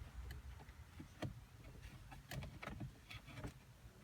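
Faint scattered clicks and taps of plastic dashboard trim being handled and fitted back into place, about half a dozen over a few seconds.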